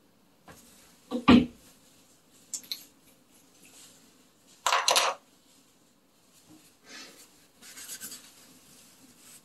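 Makeup items handled and set down on a hard surface. A knock about a second in, a smaller tap, then a louder clatter around five seconds in, followed by light rustling.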